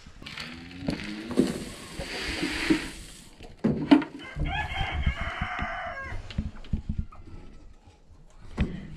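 Chickens calling, with a rooster crowing once for over a second about four and a half seconds in. Low knocks and handling noise run underneath, with one sharp knock just before the crow.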